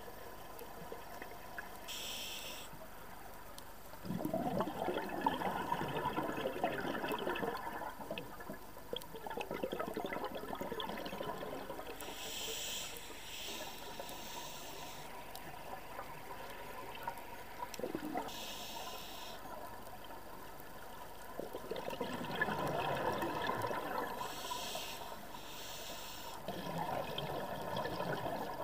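Scuba diver breathing through a regulator underwater: each short hissing inhale is followed by a longer, louder rush of bubbling exhaust, about four breaths in all.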